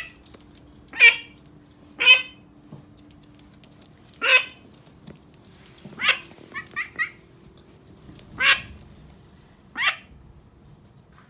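Pet domestic duck quacking: six short, loud quacks a second or two apart, with a quick run of softer calls about halfway through.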